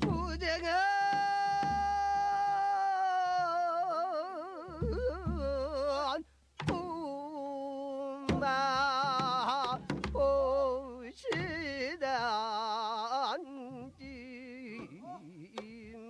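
A woman singing a slow shamanic lament of the Jindo ssitgim-gut, holding a long note at first and then singing with wide, heavy vibrato. A few low drum strokes come in under the voice.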